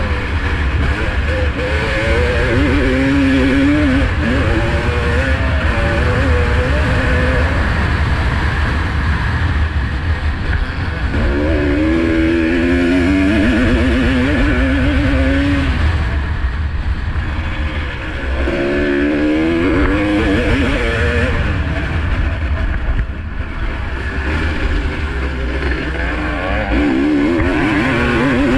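1985 Honda CR250R's 250 cc two-stroke motocross engine at race throttle, revving up and dropping back in repeated rising sweeps.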